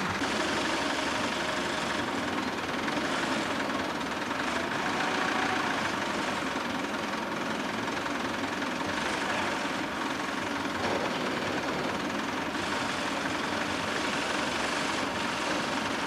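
An engine running steadily at idle, a continuous even noise with no clear changes.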